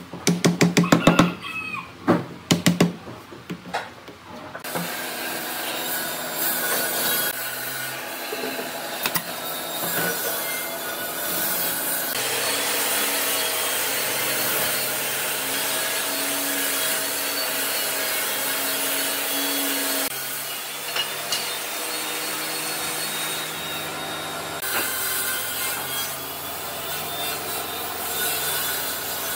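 A wooden mallet knocking on pine slats, a quick run of sharp blows in the first three seconds. Then a long, steady rasping, rubbing noise of wood being worked, with a few sudden changes in its sound.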